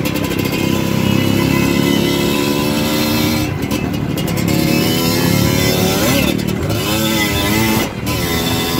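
Dirt bike engine running while riding, its pitch rising and falling as the throttle is opened and eased, with a brief dip in loudness near the end.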